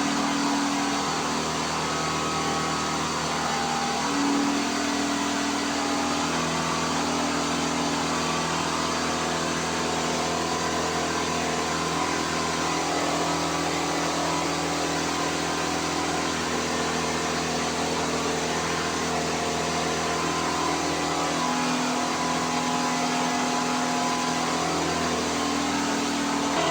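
3D printer running, its stepper motors whining in held tones that shift pitch every few seconds as the axes change speed, over a steady hiss from the cooling fans.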